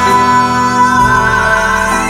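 Live band music: grand piano, upright bass and percussion playing a ballad, with long held notes.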